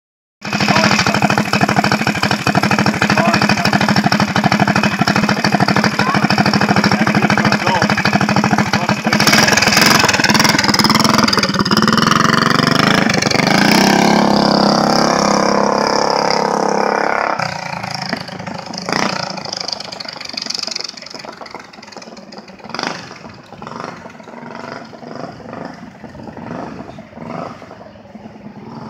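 Minibike engine running at a steady idle, then opened up about nine seconds in as the bike pulls away, its pitch falling as it rides off. The engine sound drops off sharply after about seventeen seconds, leaving fainter knocks and low noise.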